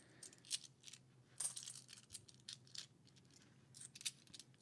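Dollar coins clinking faintly against one another as they are handled and sorted by hand, a handful of scattered light clicks.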